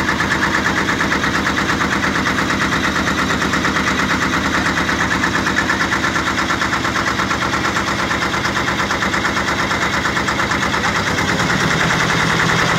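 Small tour boat's engine running steadily under way, with a fast, even chugging, heard from on board.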